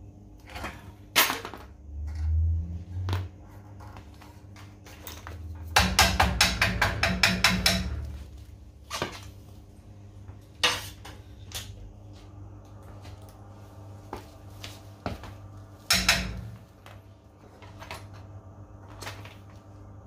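Metal tools and fittings clicking and clinking as they are handled on a commercial fridge's refrigeration unit, over a steady low hum. About six seconds in comes a quick run of clicks lasting about two seconds, and single sharp clicks follow later.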